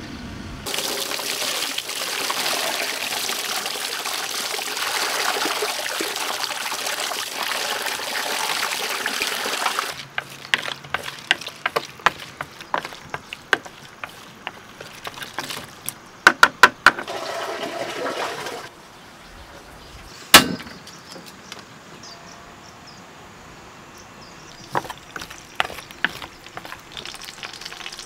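Water rushing steadily for about nine seconds, then splashing and clicking as small stream fish flip about in a plastic bowl of shallow water. One sharp knock about twenty seconds in.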